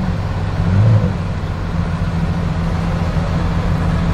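Pagani Huayra Roadster's twin-turbo V12 idling steadily, with a short blip of the throttle about a second in.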